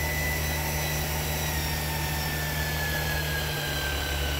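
Electric hydraulic pump for a crimping tool running steadily. It gives a low hum under a whine that slowly drops in pitch.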